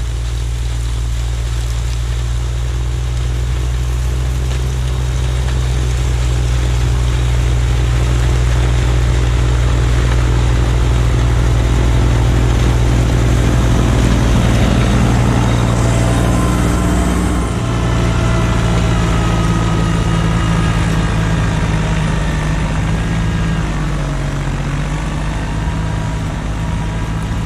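Kubota LX2610 compact tractor's three-cylinder diesel engine running steadily. About two-thirds of the way through, a high hiss cuts off and the engine note shifts slightly lower.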